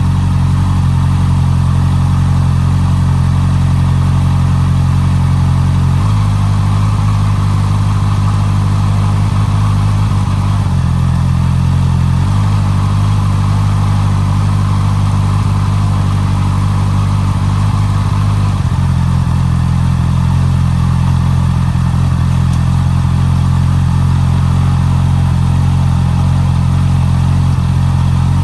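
Honda CB650R's inline-four engine running through its stock exhaust at a steady speed, its note shifting abruptly to a different steady pitch a few times, at about 6, 11, 12 and 19 seconds in.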